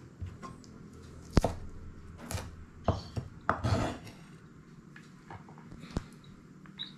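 Kitchen knife chopping garlic on a wooden cutting board: a handful of irregular knocks of the blade on the board, the loudest about a second and a half in, with a short cluster near the middle.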